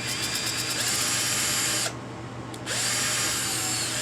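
A small electric drill runs in two bursts of about two seconds each, spinning up quickly at the start of the first, as a brass model-train wheel turning on its axle is scoured with an abrasive pad.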